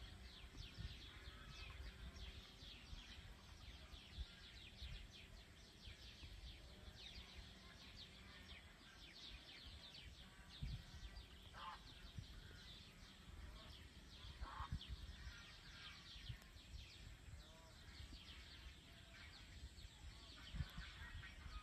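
Faint chorus of small birds chirping, over a low, uneven rumble of wind on the microphone.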